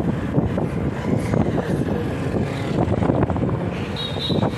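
Steady rumble of riding along a road, with wind buffeting the microphone. Brief high chirps come in near the end.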